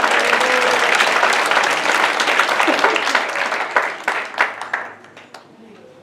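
Congregation applauding, a dense spread of clapping that thins out about four seconds in to a few scattered claps and stops near the end.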